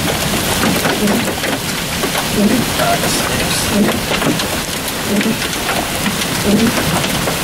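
Quarter-sized hail and heavy rain falling from a severe thunderstorm: a steady hiss of rain with many sharp ticks of hailstones striking.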